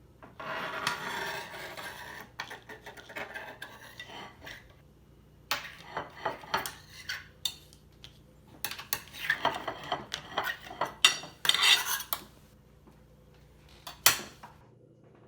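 Metal spoon scraping and clicking against crab-leg shells, in irregular bursts: a long scrape near the start, then clusters of quick taps and scrapes, and one sharp click near the end.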